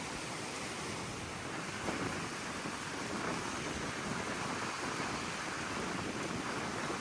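Steady rushing noise of surf and wind, swelling gently now and then.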